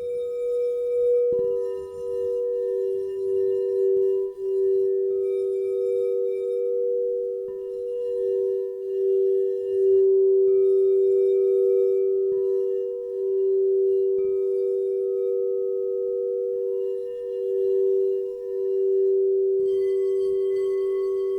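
Crystal singing bowls ringing: two steady, closely pitched tones that pulse as they beat against each other, with a bowl struck afresh about a second in and twice more later.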